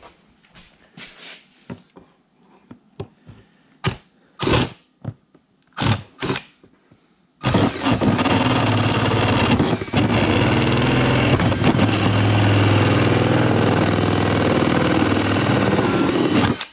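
Clicks and knocks of the tool being handled and positioned, then about seven seconds in a cordless drill runs steadily at full speed for about nine seconds, grinding through plastic to enlarge a hole in an ATV body panel, and stops abruptly near the end.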